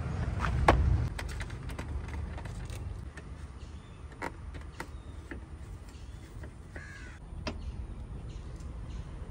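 Socket wrench on an extension bar turning bolts on a car's radiator support, giving a scattered series of sharp metallic clicks and knocks, the loudest about a second in.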